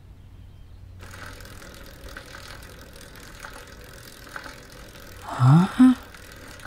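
A bicycle rolling along a street, with faint scattered ticks over a steady low hum. Near the end a voice makes two short rising sounds, like a questioning 'hm?'.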